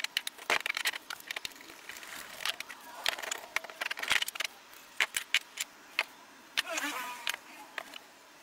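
Rusty cast-iron meat grinder parts clinking and knocking as they are taken apart and set down on a hard surface: many irregular metal clicks and taps.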